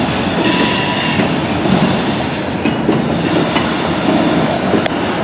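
Freight train of autorack cars rolling past: a steady rumble of steel wheels on rail, with a few sharp clanks in the second half and a faint steady high tone from the wheels.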